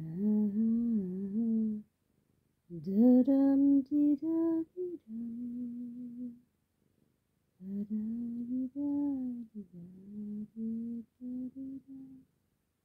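A person humming a slow tune in three phrases, with short pauses between them.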